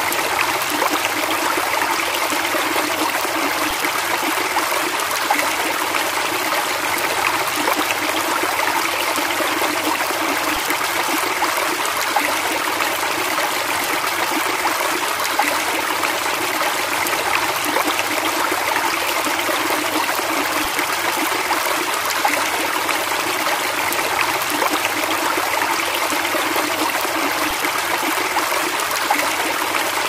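Rushing river water, a steady, unbroken rush of white-water rapids.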